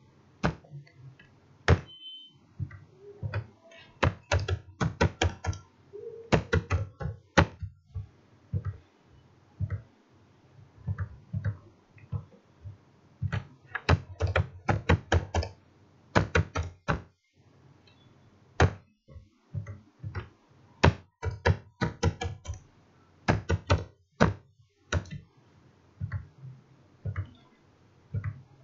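Typing on a computer keyboard: short runs of quick, sharp keystrokes with pauses between them and a few single clicks, as numbers are keyed in.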